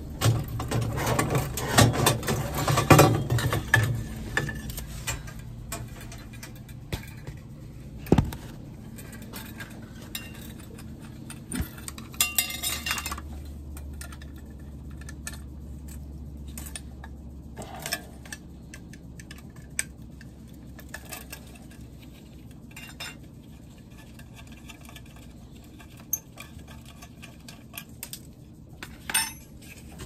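Metal hand tools and small metal parts clinking and clattering while a gas boiler's pilot burner is changed out: dense clatter for the first few seconds, then scattered clicks and knocks. A steady low hum runs underneath.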